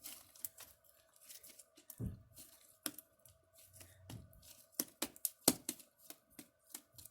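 Homemade slime with shaving cream being kneaded and rubbed by hand, giving irregular sticky clicks and pops.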